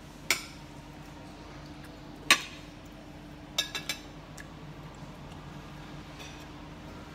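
Metal cutlery clinking against ceramic plates, a few sharp separate clinks: one just after the start, a louder one about two seconds in, then three quick ones in the middle, over a steady low room hum.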